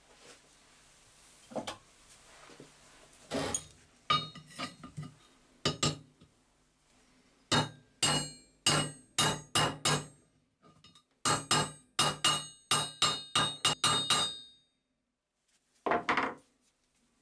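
Small hammer tapping on metal at the end of a square steel bar used as an anvil. It makes sharp, ringing metallic clinks in quick runs of about three a second, with pauses between the runs and a final pair of clinks near the end.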